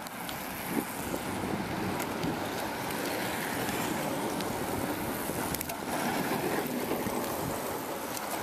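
Tyre hum from a pack of recumbent trikes and velomobiles rolling past on tarmac, mixed with wind on the microphone.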